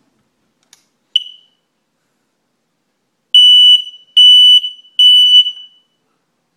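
Fire alarm beeping in a high, piercing tone: one short chirp about a second in, then three long beeps in quick succession, the start of its repeating three-beep alarm pattern.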